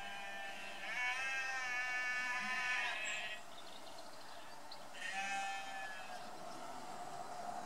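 Sheep bleating: a long, wavering bleat about a second in, then a shorter one about five seconds in.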